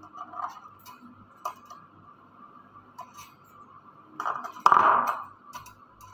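Small side-cutting pliers working at a thin metal puzzle sheet: light metallic clicks and clinks, then a louder rattle and ring of the sheet about four seconds in. The metal is hard and tough for the small cutters to get through.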